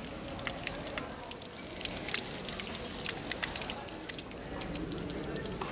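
Thin jets of water from a stone fountain's spouts falling into its water-filled basin: a steady trickle and splash with many small drips.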